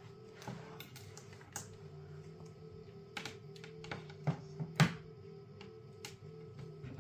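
Clicks and light knocks of a power adapter's cable and plastic DC plug being handled, with the sharpest knocks between about three and five seconds in, over quiet background music.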